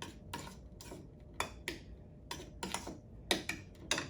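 Kitchen utensils and dishes being handled: a quick, irregular series of light clicks and clinks, about a dozen in four seconds, as spoons knock against the mug or bowl and the countertop.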